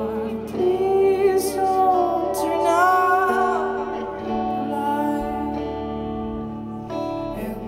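Live rock band playing, with a male singer holding long, wavering notes over electric guitar.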